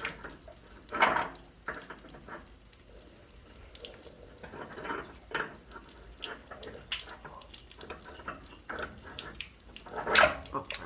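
Water draining out of a water heater tank, splashing unevenly, with two louder splashes about a second in and near the end.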